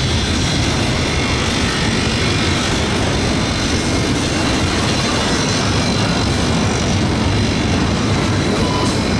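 CSX double-stack intermodal freight train's well cars rolling past close by: a loud, steady rumble of steel wheels on rail.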